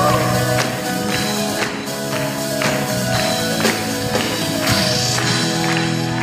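Live band playing a Christmas worship song: sustained chords over a steady percussion beat, about two strikes a second.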